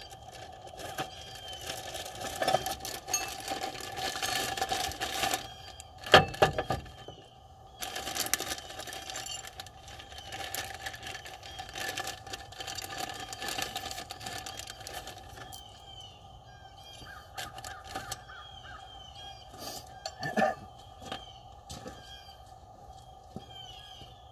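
Metal hand tools clicking and clattering on engine bolts and brackets in irregular runs, with a sharp knock about six seconds in and another near twenty seconds. Birds chirp in the background.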